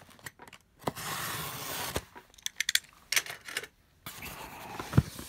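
Packing tape being slit and torn from a corrugated cardboard shipping box, a rasping tear of about a second. Then come a few sharp clicks, more scraping of the cardboard, and a single heavier knock on the box near the end.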